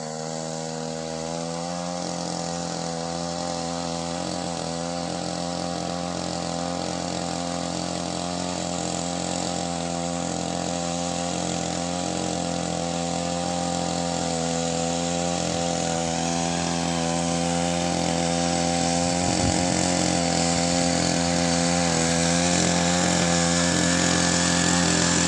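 Small engine of a walk-behind paddy power weeder running steadily at an even speed, growing gradually louder as the machine comes closer.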